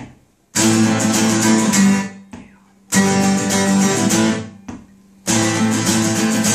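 Two acoustic guitars strumming chords together in stop-start hits: three chords, each struck hard, ringing for a second or two and then dying away before the next.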